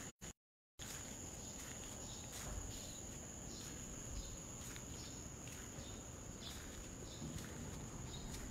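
A steady high-pitched insect trill over quiet street ambience, with faint irregular ticks of footsteps. The sound cuts out for about half a second just after the start.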